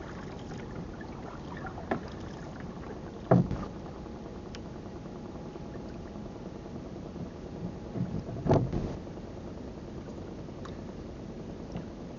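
Steady wind and sea noise around a small wooden fishing boat, with a few dull knocks on the boat as a long line is hauled in and its hooks hung up, the two loudest about three seconds and eight and a half seconds in.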